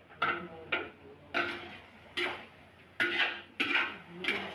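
A metal spatula scraping and knocking against a metal wok while stir-frying chicken pieces, about seven strokes at an uneven pace, each ringing briefly.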